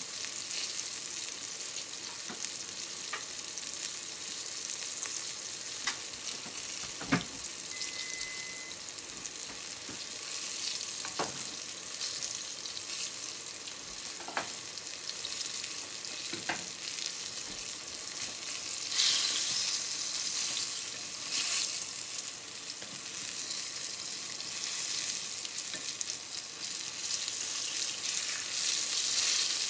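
Tempura frying in a small pan of hot oil, a steady sizzle and bubbling. A few light knocks come through, and near the end chopsticks turn the pieces in the oil.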